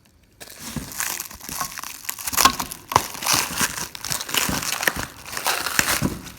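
Plastic (nylon) wrapping being cut and pulled off a boxed item, crinkling irregularly with many small crackles.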